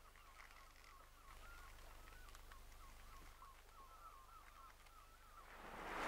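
Faint distant bird calls, a rapid run of short chattering notes that dies away about four seconds in. Near the end a rushing noise swells up.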